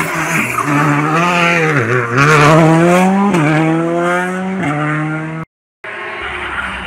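Skoda Fabia R5 rally car's 1.6-litre turbocharged four-cylinder accelerating hard out of a hairpin: the revs dip through the bend, then climb and fall back with two quick upshifts, and the engine grows fainter as the car pulls away. The sound cuts out briefly near the end.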